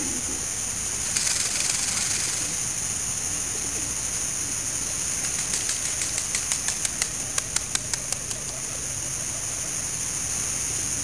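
Male Indian peafowl displaying with its train fanned, its feathers rustling briefly about a second in and then rattling in a run of sharp clicks, about six a second, around the middle. A steady hiss lies underneath.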